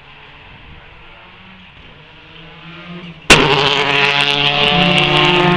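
Faint engine note of a car out on the circuit, then about three seconds in a sudden jump to a loud rally car engine running hard, its pitch wavering and climbing, with sharp crackles through it.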